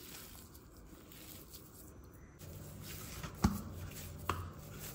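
A hand kneading a soft mashed-potato dough in a stainless steel plate, faint and squishy, with two short clicks a little after the midpoint.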